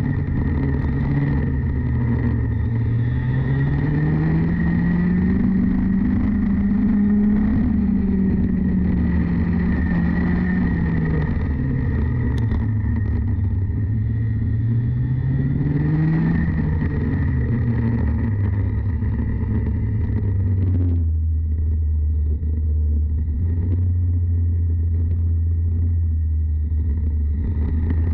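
Racing kart engine running at moderate revs, its note rising and falling smoothly several times as the kart speeds up and slows. About three quarters of the way through it drops to a steady low idle.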